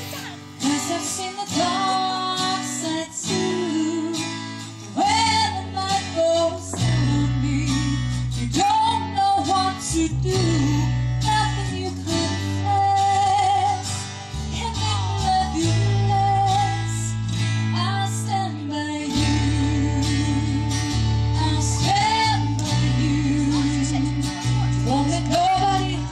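A woman singing into a microphone, amplified through a PA speaker, over guitar-led backing music with a bass line.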